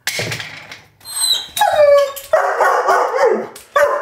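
A dog barking loudly, a run of several sharp barks and yelps one after another.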